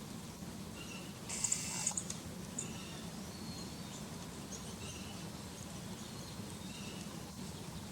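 Faint, scattered chirps of small birds over a steady low hum, with a brief rustling scratch about a second and a half in.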